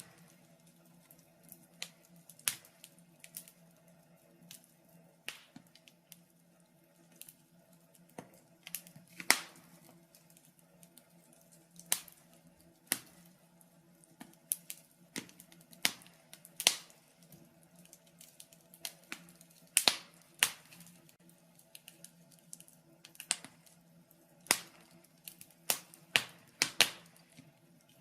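Wood fire crackling in a fireplace: irregular sharp pops and snaps, some much louder than others, with no steady rhythm.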